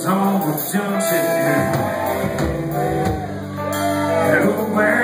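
Live country band playing electric guitars, bass and drums, with a man singing over them into a microphone.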